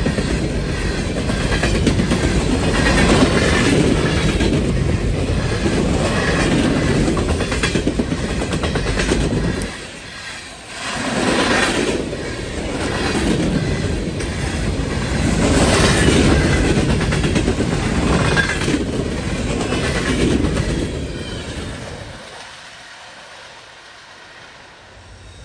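A freight train of aluminum coal hopper cars rolling past close by, its wheels running loudly on the rails. Near the end the sound fades away as the last car passes and recedes.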